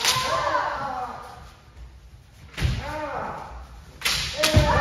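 Kendo practice: sharp cracks of bamboo shinai strikes and heavy foot-stamps on the floor, three times, each met by a long drawn-out kiai shout.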